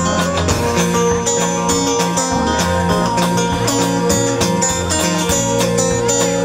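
Music with acoustic guitar and a steady beat, in a country style.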